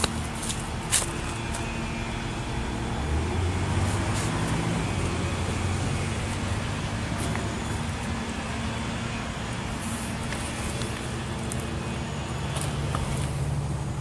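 A vehicle engine running steadily with a low hum, and a couple of sharp clicks in the first second.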